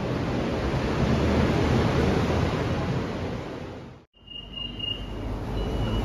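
An even rush of noise that swells and fades over about four seconds. Then, inside a Skytrain car standing at a platform with its doors open, a low rumble with three short, high beeps.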